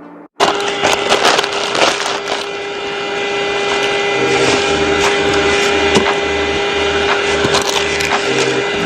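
A handheld 12-volt car vacuum cleaner running, its motor giving a steady whine over a rushing airflow noise, with crackles and clicks as debris is sucked up. It switches on about half a second in.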